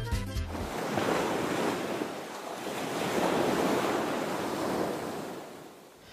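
Ocean surf: a washing rush of waves that swells and eases twice, then fades out near the end. A music jingle cuts off in the first second.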